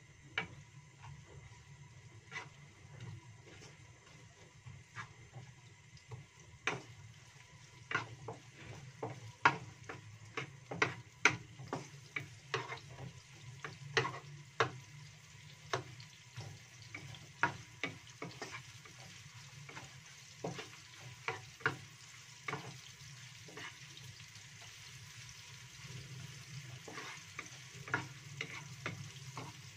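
Sliced shallots sizzling in shallow oil in a wok, stirred with a wooden spatula that knocks and scrapes against the pan again and again. The sharp knocks are the loudest sounds and come thickest in the middle stretch.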